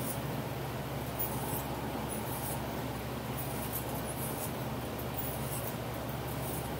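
Steady low machine hum, with short bursts of faint high scratching and clicking as a thin metal pick is worked against a small metal engine part.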